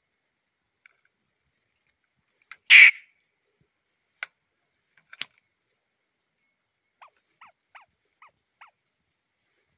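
Caged grey bird giving one loud, harsh call about three seconds in, followed by two sharp clicks and, near the end, a quick run of five soft short notes.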